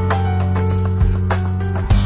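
Background music with sustained notes and a steady beat.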